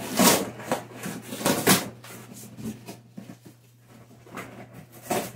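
Cardboard of a bicycle shipping box being ripped open by hand: loud tearing rips near the start and again about a second and a half in, quieter scuffing and rustling after, and one more rip near the end.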